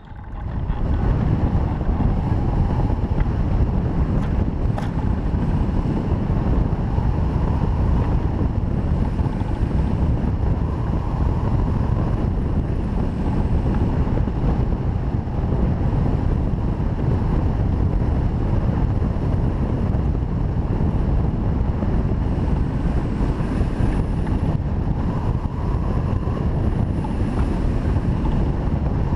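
Wind rushing over the microphone of a camera mounted on a hang glider on a winch tow, building up within the first second as the glider launches and then holding steady.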